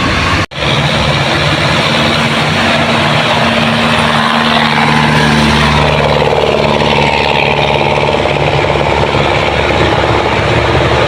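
Heavy vehicle engine running steadily and loudly, with a sudden brief cut about half a second in where one clip joins the next.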